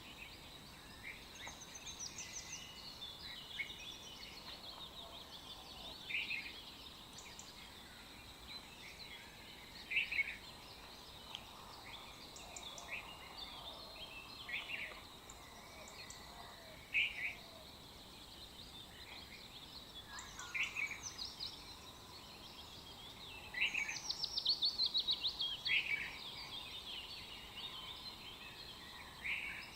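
Birds singing: many short chirps and calls from several birds, with a fast rattling trill about three-quarters of the way through, over a faint steady hiss.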